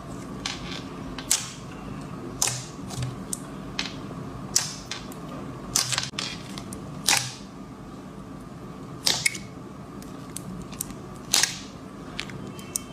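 Slime being pressed and poked, giving irregular sharp pops and clicks over a faint steady hum.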